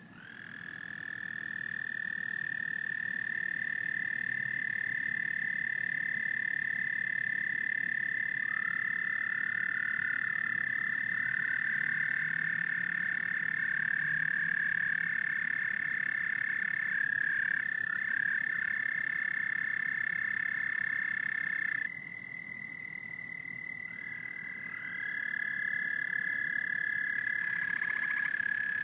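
Frogs trilling in a steady, high, continuous chorus that fades in at the start. About three-quarters of the way through it drops abruptly quieter, then swells back up a few seconds later.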